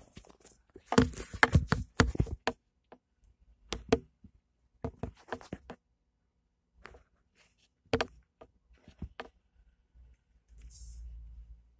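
Handling noise from a phone being held and moved inside a car: irregular knocks and taps, a quick cluster in the first couple of seconds, then single knocks every few seconds.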